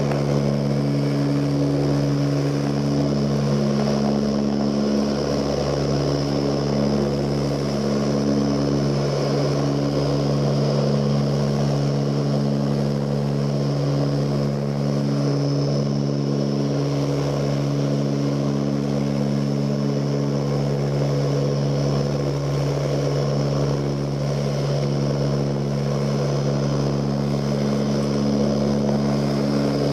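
Cabin noise of an Ilyushin Il-18's four Ivchenko AI-20 turboprop engines in flight: a steady propeller drone with a strong low hum and higher tones that waver in and out every second or two, over a rush of airflow.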